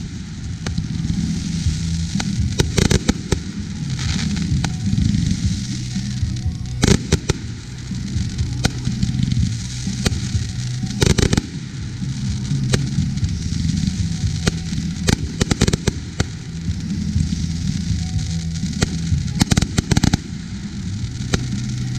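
Consumer fireworks going off: repeated sharp bangs and crackling from aerial bursts, several coming in quick clusters. Music with a steady bass line plays underneath.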